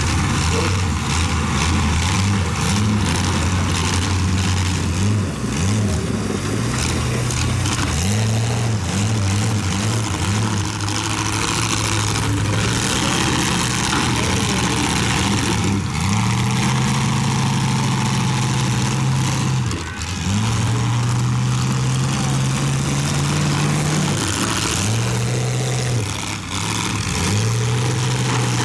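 Demolition derby cars' engines revving hard, pitch climbing and dropping and held at high revs for several seconds at a time, over a dense noisy din with a few sudden knocks.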